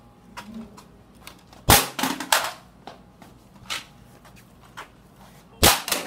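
A hard plastic toy being smashed: two loud, sharp bangs about four seconds apart, with a few lighter knocks between.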